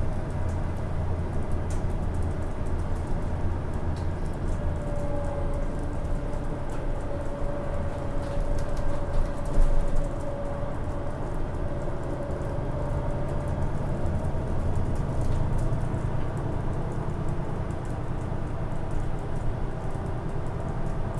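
Road noise inside a moving vehicle's cabin: a steady low rumble of tyres and engine, with a faint held whine for several seconds in the middle and a brief louder bump about nine seconds in.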